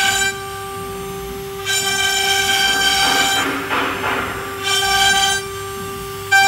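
CNC router spindle spinning with a steady whine. Several times it turns louder and buzzier, with a rasping cutting noise, as the bit engraves letters into a wooden board, then drops back to the plain whine.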